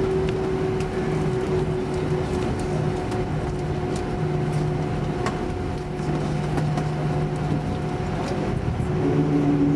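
Airbus A320 cabin noise while taxiing, heard from a window seat over the wing: the turbofan engines at idle give a steady whine and hum over a low drone. About nine seconds in, a further lower tone joins and the sound grows a little louder.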